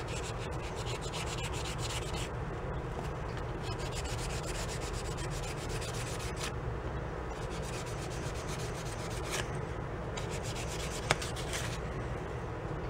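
Steady scrubbing and rubbing as the parts of a motorcycle light switch are cleaned after being sprayed with cleaner, with one sharp click near the end.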